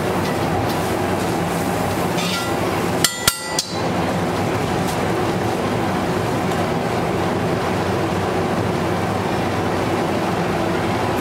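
Butter sizzling on a hot flat steel griddle, with a metal spatula clanking against the griddle three times about three seconds in, each strike ringing briefly.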